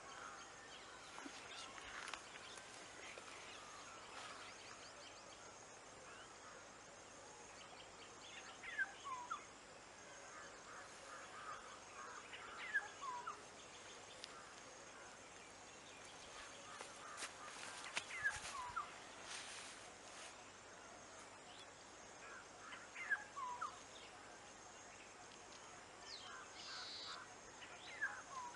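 Black-hooded oriole calling: a short two-part whistled call that glides down and ends in a little hook. It is repeated five times, about every four to five seconds.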